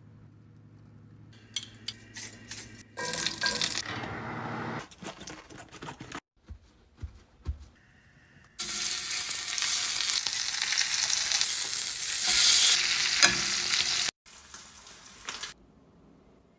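Food sizzling in a hot oiled frying pan: a loud, even hiss for about five seconds that stops abruptly. It comes after a few seconds of clatter and stirring sounds.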